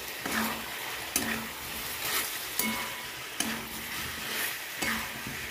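Chicken pieces coated in yogurt and ground spices sizzling in hot mustard oil in a kadai while a spatula stirs and scrapes them, several scraping strokes about a second apart over a steady sizzle. This is the kosha stage, the spices being fried into the meat.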